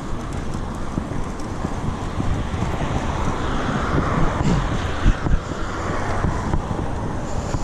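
Road traffic passing, cars swishing by in swells, under a low rumble of wind on the microphone of a moving bicycle, with two sharp low thumps about five seconds in.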